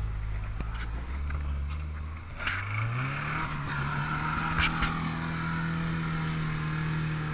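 Toyota pickup's engine running low, then revving up about two and a half seconds in and holding at higher revs as the truck drives into a muddy pond. Water splashes around it, with a few sharp knocks.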